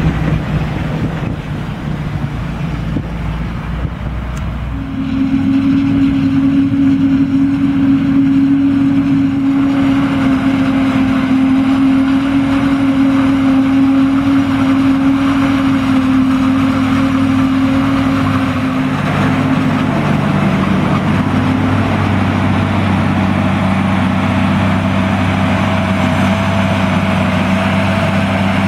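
Heavy diesel engines of a tractor pulling a forage wagon and a self-propelled forage harvester, running steadily under load while chopping maize. The engine tone changes about five seconds in and again near twenty seconds.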